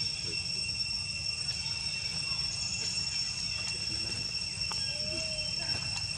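Insects droning steadily at a high, even pitch over a low rumble, with a faint short call about five seconds in.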